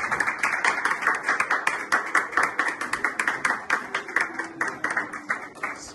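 Wedding guests applauding with many hands clapping fast; the clapping thins out and fades toward the end.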